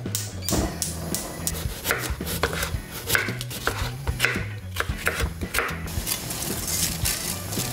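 A kitchen knife chopping a cucumber on a wooden cutting board: a run of sharp cuts, about two a second. Near the end this gives way to the steady hiss and bubble of a pan of boiling water.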